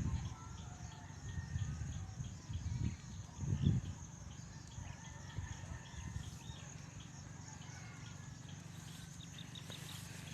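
Rural outdoor ambience: faint, evenly repeated high chirps from birds or insects over a low rumble that swells briefly a few seconds in.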